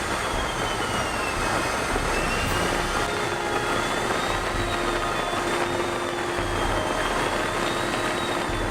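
Jet engine running steadily: a continuous rush with a high whine that slowly wavers up and down in pitch.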